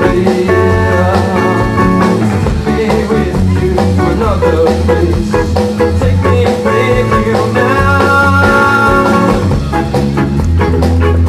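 Live rock band playing, with electric guitars and drums, loud and steady.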